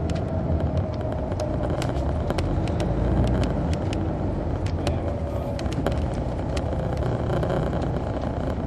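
2002 MCI D4000 coach's Detroit Diesel Series 60 engine running with the bus under way, heard from the back seat inside the cabin: a steady diesel rumble with a whine that slowly falls in pitch over the first six seconds, and frequent small clicks and rattles.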